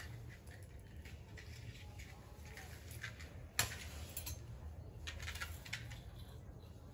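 Faint clicks, taps and rustles of small puja items being handled on the floor over a low steady hum, with one sharper click about three and a half seconds in.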